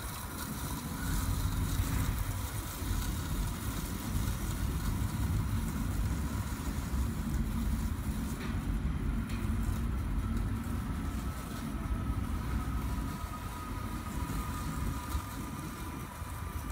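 eM1000 robotic lawn mower driving across grass: a faint steady motor whine, rising slightly in pitch in the second half, over a constant low rumble.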